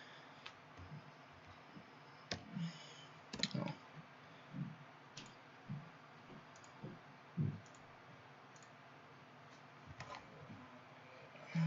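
Faint, scattered clicks and soft taps of a computer mouse and keyboard, a dozen or so irregular strikes with pauses between them.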